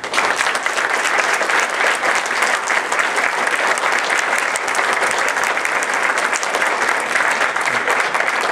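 Audience applauding, a large crowd clapping that starts suddenly and keeps up steadily.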